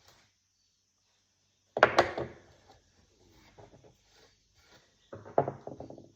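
Wood being handled and worked by hand: two sharp wooden knocks about two seconds in, a few faint taps, then a quick rattling scrape made of rapid clicks lasting about a second near the end.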